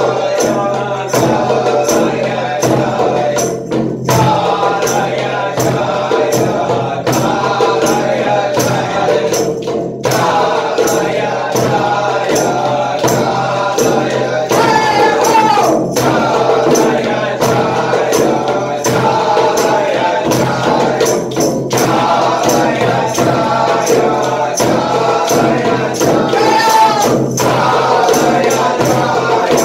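Devotional chant music: a group of voices sings over a steady drone while a tambourine keeps a steady beat. The singing breaks briefly about every six seconds between phrases.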